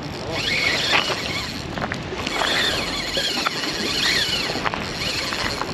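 Steady wind and surf noise on the microphone, with a few faint high rising-and-falling sounds and a few light clicks.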